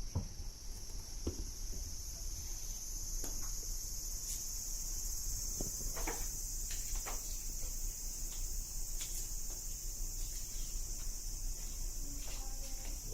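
Steady high-pitched insect chirring throughout, with a few scattered light knocks and taps.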